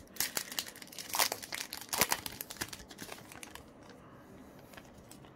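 Foil wrapper of a Yu-Gi-Oh! booster pack being torn open and crinkled by hand: a quick run of sharp crackles, loudest a little after one second and at two seconds. After about three and a half seconds it drops to faint handling.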